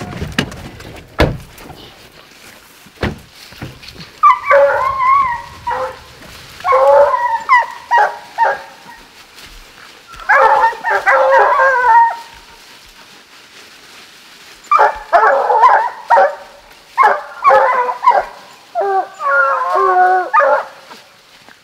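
Hunting hounds baying on a bear, in six separate bouts of bawling barks and howls with short pauses between them. A few sharp knocks come in the first couple of seconds.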